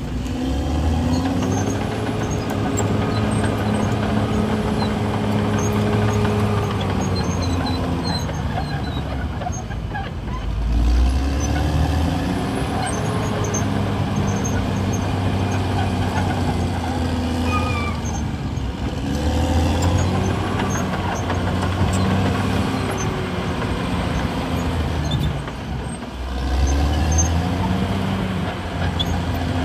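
Caterpillar D6R bulldozer's diesel engine working, its note repeatedly dipping and rising again as the load on the machine changes, with a few heavier low surges.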